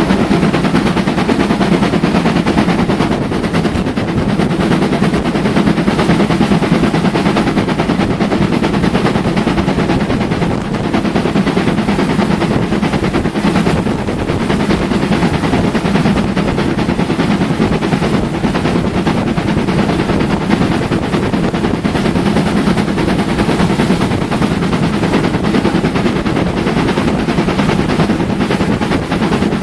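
Train on a heritage railway running steadily, a loud, even, fast pulsing that holds at the same level throughout.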